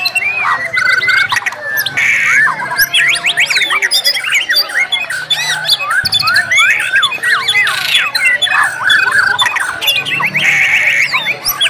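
White-rumped shamas singing at once in a dense tangle of fast whistled phrases, sweeping notes and rapid trills, shama song packed with mimicked material. Harsh rasping bursts cut through about two-thirds of the way in and again near the end.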